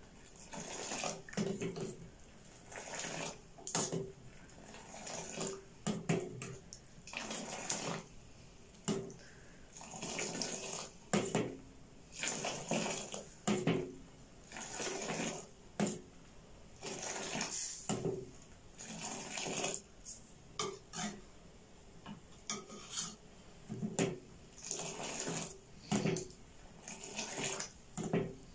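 Pink Kashmiri tea being ladled up and poured back into a steel pot over and over, about once every second or two: splashing liquid with the steel ladle clinking against the pot. This is the aerating of noon chai, which turns it pink.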